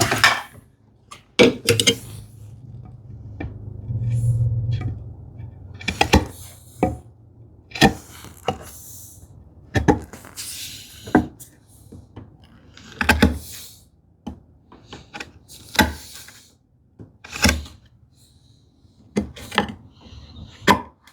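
Irregular wooden knocks and taps from a drawer's wooden parts and hand tools being handled on a workbench while a drawer back is test-fitted into a hand-cut housing dado. A longer low rubbing sound comes about four seconds in.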